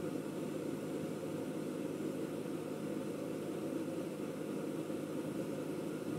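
A steady low machine hum with no change in it.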